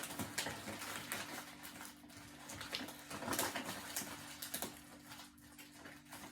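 A person chewing a chocolate peanut butter egg, with scattered small clicks and mouth noises over a faint steady low hum.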